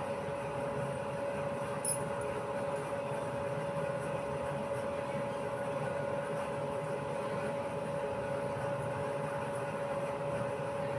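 A steady mechanical hum with a constant whine over an even hiss, unchanging throughout.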